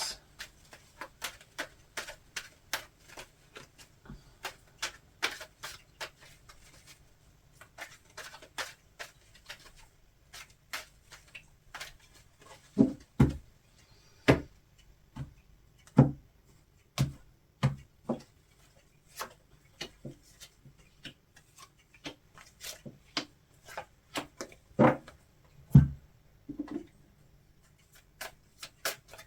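Tarot cards being shuffled by hand: a long, irregular run of soft card slaps and taps, with a few louder knocks against the table.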